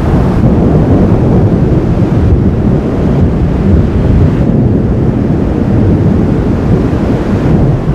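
Wind buffeting the microphone in a thunderstorm: a loud, steady low rumble without breaks.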